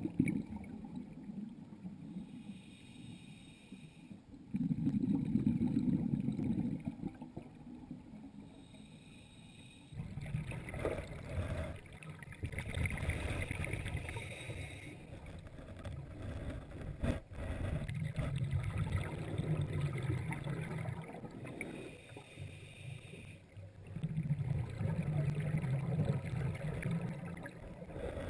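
Scuba exhalation bubbles from a diver's regulator, coming in bursts every few seconds with the diver's breathing, heard muffled underwater through the GoPro dive housing.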